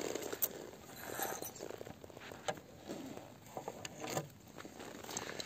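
Faint handling sounds with a few scattered light clicks, as small metal finds (a silver pendant and rings) are handled and set down on a wooden table.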